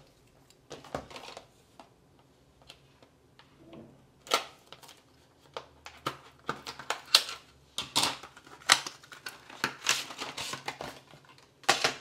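Hands handling a small plastic USB-C hub and its packaging: a few soft clicks, then from about four seconds in a busy run of clicks, taps and rustles.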